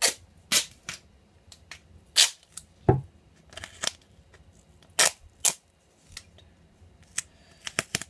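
Duct tape being worked off the roll and cut: a string of short, sharp snaps and rips at irregular intervals, several in quick succession near the end, with a dull thump about three seconds in.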